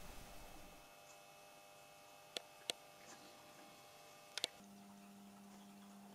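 Near silence: faint steady electrical hum, a lower hum tone joining about halfway through, and three short soft clicks, two about two and a half seconds in and one a little after four seconds.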